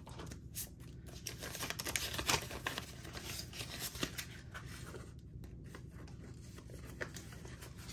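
Paper banknotes rustling and crinkling as a stack of bills is handled and sorted by hand, in irregular crisp rustles, over a steady low hum.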